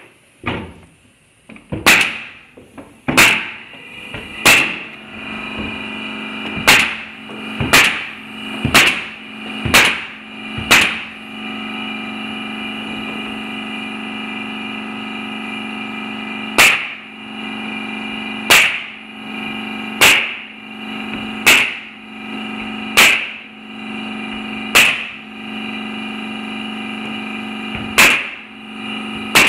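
Pneumatic coil nailer firing nails into plywood loft flooring: sharp shots about once a second, a pause of about five seconds near the middle, then more shots every second or two. A steady drone runs under the shots from a few seconds in.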